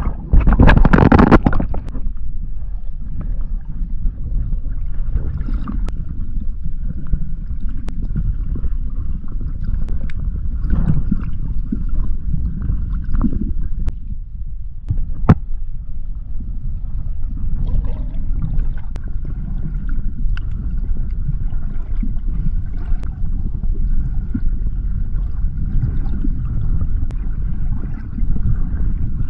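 A splash as the camera plunges under the sea surface, about a second in, then the steady muffled underwater rumble of moving seawater heard through the camera, with scattered faint clicks.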